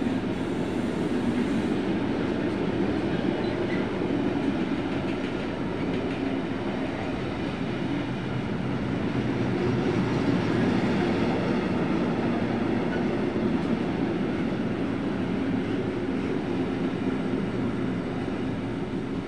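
Intermodal freight train of pocket wagons loaded with semitrailers passing close by, its wheels rolling steadily on the rails.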